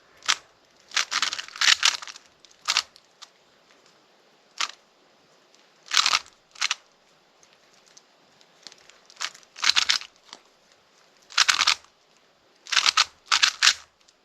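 Plastic Rubik's cube being turned during a solve: short bursts of clicking layer turns, about a dozen of them, separated by pauses.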